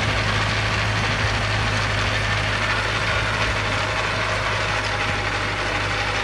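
Tractor's diesel engine running steadily under load as it pulls a multi-row inter-row cultivator through the soil.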